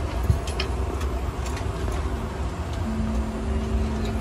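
Steady low rumble of airliner cabin noise. A steady hum comes in about three seconds in, and there are scattered light clicks and knocks.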